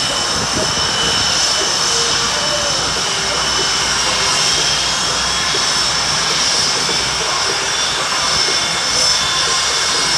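Aircraft engine running steadily: a continuous rush with a high, slightly wavering whine over it.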